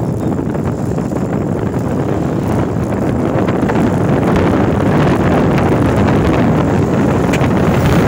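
Wind buffeting the microphone of a moving camera: a loud, steady rush of low noise that grows a little louder about halfway through.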